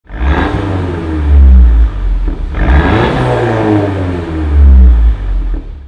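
Car engine and exhaust, loud, swelling twice to a peak with a deep rumble, its pitch gliding down each time.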